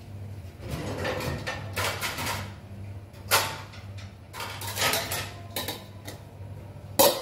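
Kitchen clatter of pots and utensils being handled at the stove: a run of knocks and scrapes, with two sharper clanks about three seconds in and near the end, over a steady low hum.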